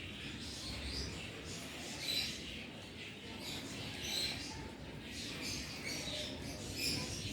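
Birds chirping in the background: a scatter of short, high chirps over a low steady hum.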